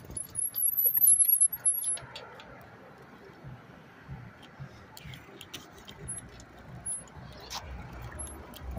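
Bicycle brakes squealing in a high, wavering pitch for about two seconds, followed by scattered light clicks and rattles from the rolling bike, over a faint low rumble of traffic.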